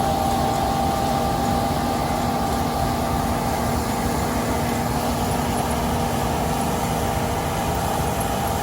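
Combine harvester running steadily, its engine giving a continuous drone with a held hum that does not change.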